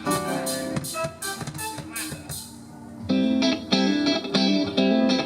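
Live band playing at a sound check: sparse guitar notes, then about three seconds in the full band comes in loudly with strummed chords and regular drum hits.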